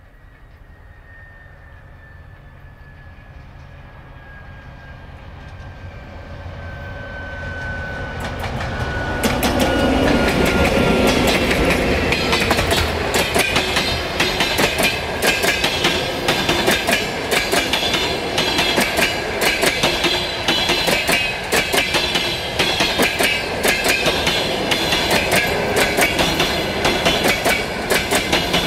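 A TEP70 diesel locomotive hauling a passenger train approaches, its engine rumble and a faint whine slowly falling in pitch growing louder, and passes about ten seconds in. The passenger coaches then roll by with a steady clickety-clack of wheels over the rail joints.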